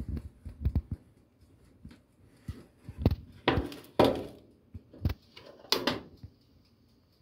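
Metal baking tray scraping and knocking against the rack of a countertop electric oven as it is pulled out: a few separate clanks and short scrapes.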